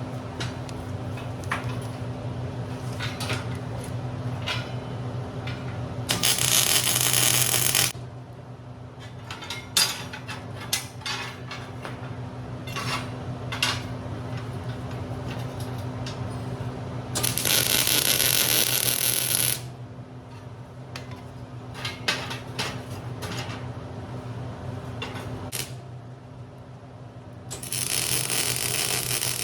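Arc welding in three bursts of about two seconds each, a steady crackling sizzle. Between the bursts, steel pieces clink and tap, over a steady electrical hum.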